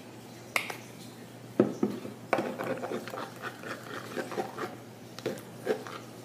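Homemade face-wash slime being squeezed and stirred by hand in a small plastic tub: a run of irregular small clicks and sticky squelches, with a few sharper knocks in the first two and a half seconds.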